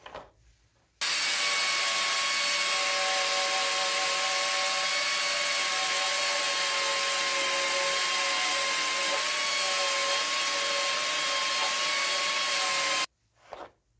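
An electric drill spinning an abrasive flap wheel against steel pincers to sand off rust: a steady motor whine over a hiss of abrasion. The sound starts and stops abruptly.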